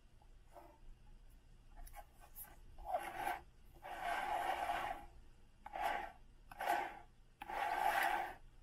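Plastic ballet turnout board being twisted by hand so its top disc grinds round on its base: a rasping plastic-on-plastic rub in five strokes, the longest about a second, starting about three seconds in.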